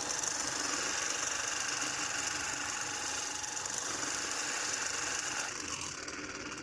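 Air-cooler motor running with a loud, harsh mechanical noise while its shaft does not turn: the rotor has come loose inside, and the shaft's threads are worn through. The noise softens about five and a half seconds in.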